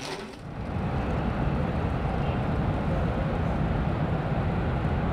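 Steady low rumbling outdoor background noise with no distinct events, fading in over the first second.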